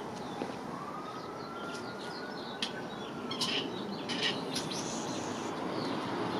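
Small birds chirping in short high calls over a steady outdoor hiss. A faint single tone rises slowly and fades out about halfway through.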